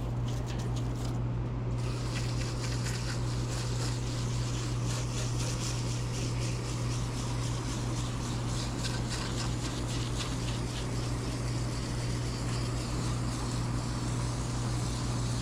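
2008 Carrier heat pump package unit running: a steady compressor hum with the whoosh of the condenser fan over it.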